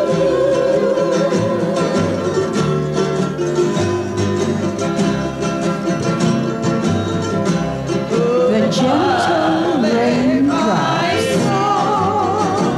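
Hawaiian hula song: wavering, vibrato-rich singing over plucked-string accompaniment, with swooping, sliding notes about eight seconds in.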